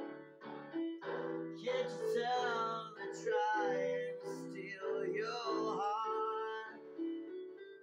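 A man singing over piano chords played on an electronic keyboard. The keyboard plays alone for the first second or so, then the voice comes in and stops again shortly before the end.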